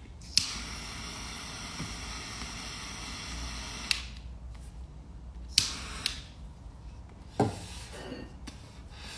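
Butane jet-flame lighter clicking on and hissing steadily for about three and a half seconds while lighting a cigar, then cutting off abruptly. A few light clicks and a soft knock follow.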